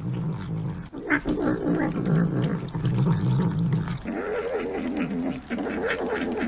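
Cat growling and vocalising while it eats: a low, pulsing growl for the first few seconds, then a wavering, rising-and-falling moan.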